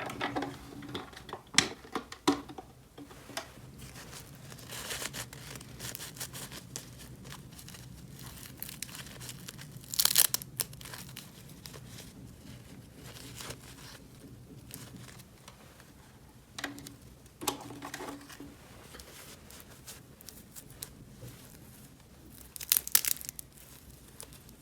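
Toy packaging being torn and crinkled in scattered bursts, with short clicks between them; the loudest bursts come about ten seconds in and again near the end.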